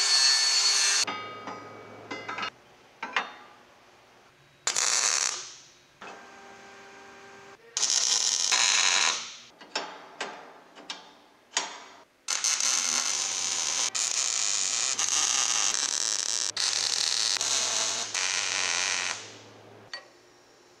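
Metalworking shop sounds in quick succession: an angle grinder grinding steel for about a second at the start, then scattered clicks and knocks of metal parts, and several loud bursts of a steady rushing noise that fade away at their ends, the longest lasting about seven seconds in the second half.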